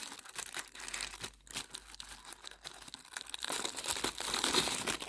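Packaging crinkling and tearing by hand as toy parts are unwrapped, in irregular crackles that grow louder over the last second and a half.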